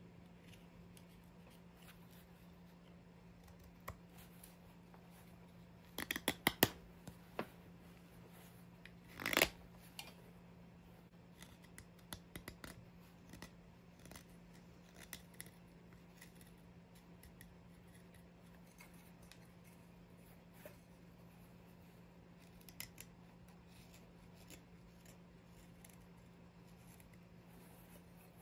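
Mora 106 carving knife slicing shavings from an oak spoon blank: scattered sharp cuts and clicks, a quick run of them about six seconds in and a longer, louder cut about nine seconds in. A steady low hum lies underneath.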